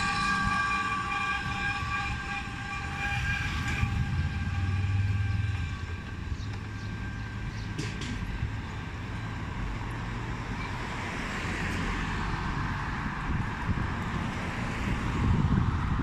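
City street traffic: electric scooters and motor vehicles passing. For about the first four seconds a steady high tone is heard, and a low engine hum runs from about four to ten seconds in.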